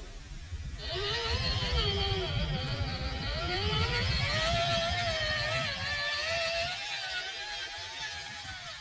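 Electric motor and gear whine of a Traxxas TRX-4 scale RC crawler climbing rock, rising and falling in pitch as the throttle is worked, over a low rumble; it grows louder about a second in.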